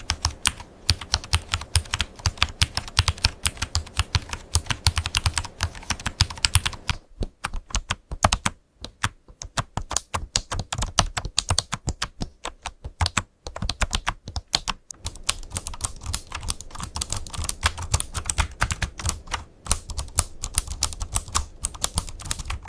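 Rapid typing on a computer keyboard: a fast, dense run of key clicks, broken by two short pauses, one about a third of the way in and another a little past halfway.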